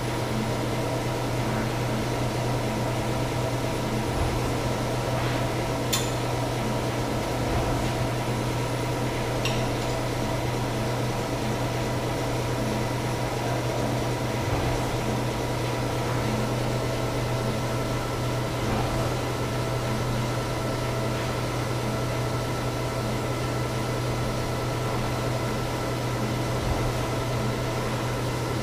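Steady mechanical hum of industrial machinery running, with a deep drone and a few steady higher tones, and a couple of light clicks about six and nine seconds in.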